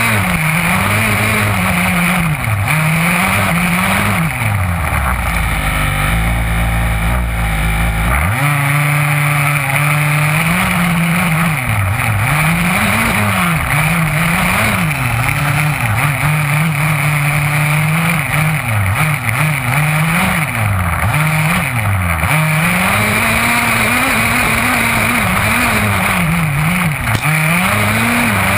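HPI Baja 5B 1/5-scale RC buggy's two-stroke petrol engine, heard close up from on board, revving up and down over and over as the throttle is worked. About four seconds in, the note drops to a low steady idle. It picks up again about four seconds later.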